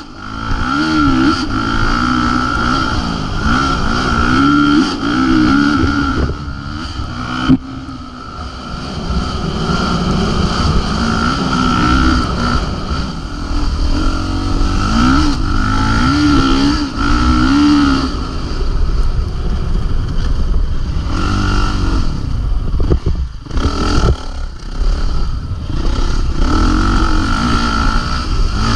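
Dirt bike engine running under way, its pitch climbing and dropping over and over with the throttle, over a low rumble, with a sharp knock about seven seconds in.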